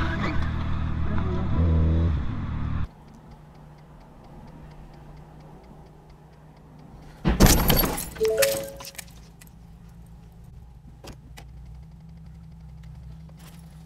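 Loud road and wind noise from a motorcycle ride that cuts off abruptly about three seconds in, leaving the low hum inside a car. About seven seconds in comes the loud crash of two cars colliding, with a brief two-note tone right after it and a few faint clicks near the end.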